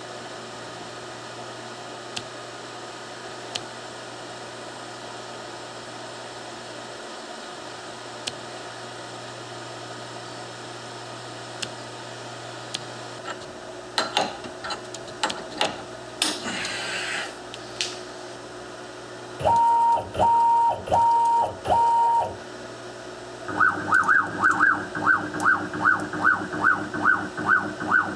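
CNC router with a steady low hum and light clicks, then four short, evenly spaced electronic beeps, then a quick regular train of short pulses, about three a second, as the machine runs its Z-probe touch-off cycle.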